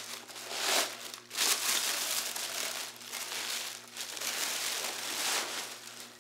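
Brown honeycomb kraft-paper packing wrap and a white inner wrap crumpling and rustling as they are pulled off a glass candle jar. The rustling comes in loud stretches with a brief pause about a second and a half in.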